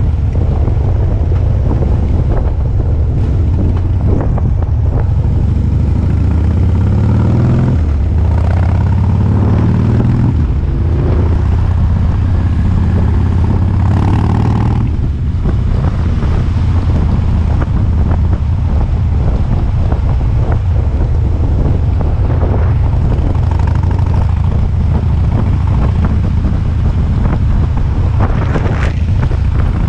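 Cruiser motorcycle engine running under way, the engine note climbing and dropping a few times in the first half as it pulls away along the road, with wind rushing over the microphone.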